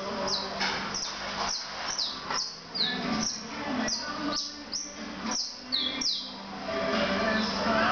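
Caged canary calling in a series of sharp, high notes that slide downward, about two a second, stopping about six seconds in. A steady low hum runs underneath.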